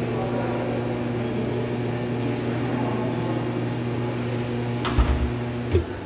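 LaCimbali M39 espresso machine's pump humming steadily while it pulls a single espresso shot. Near the end come two sharp clicks, and the hum stops as the shot ends at about 27 seconds of extraction.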